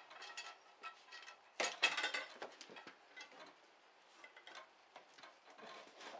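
Scattered light clicks and taps, with a short cluster of louder ones about two seconds in; no saw is running.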